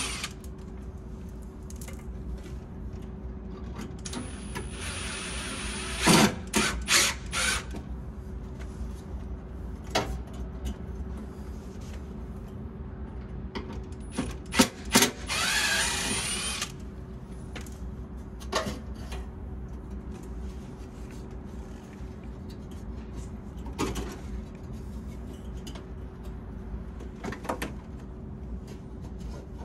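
Cordless drill-driver backing out the mounting screws of an air conditioner's outdoor fan motor, in two short runs of a couple of seconds each. Sharp clicks and knocks of screws and parts being handled come between the runs, over a steady low hum.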